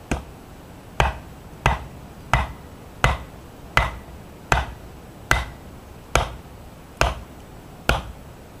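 Batoning wood: a wooden baton striking the spine of a big knife driven into a log, about eleven sharp knocks a little under a second apart, some followed by a brief ring from the blade.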